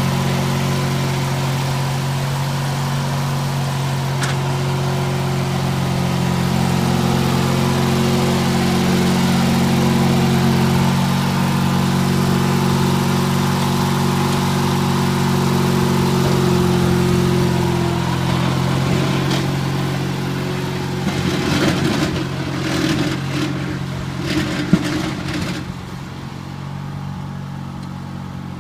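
Garden tractor engine running steadily under load as it pushes snow with a steel V-plow. In the last third, sharp clattering and scraping sounds come in while the engine grows fainter as the tractor moves away.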